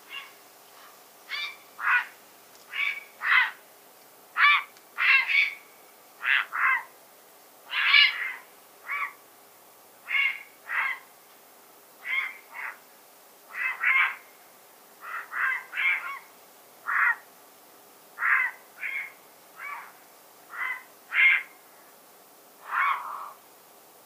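Grey herons croaking: a long series of short, harsh calls, about one or two a second and often in quick pairs.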